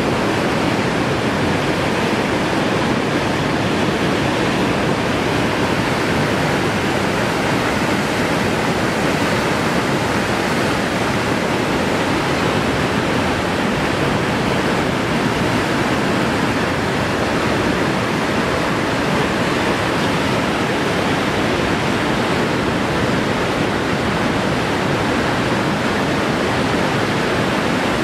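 Whitewater rapids rushing through a narrow rock channel, a steady, unbroken noise of churning water.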